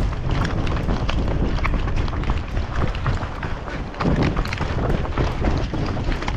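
Running footsteps and rattling gear with wind buffeting the microphone: a dense rumble broken by many irregular sharp clicks.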